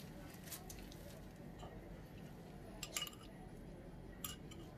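A few light clinks of a metal spoon against a ceramic bowl of marinade, two close together about three seconds in, over faint squishing of gloved hands rubbing sauce into a raw whole chicken.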